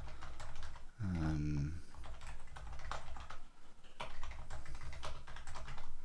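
Fingers typing on a computer keyboard: a quick, uneven run of key clicks, as a git command is entered at the terminal.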